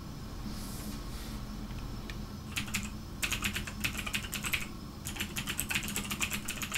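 Typing on a computer keyboard: quick runs of key clicks start about two and a half seconds in, broken by a couple of short pauses, over a steady low room hum.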